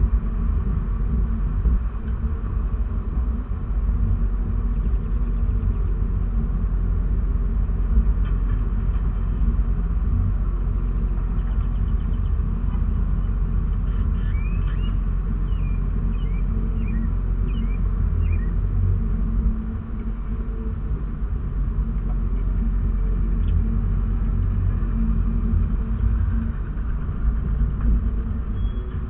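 Steady low rumble of a car idling in traffic, heard from inside the cabin.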